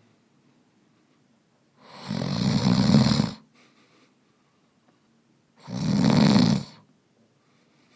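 A man snoring in his sleep: two loud snores, the first about two seconds in, swelling over about a second and a half, the second shorter, about six seconds in. A faint breath follows the first snore.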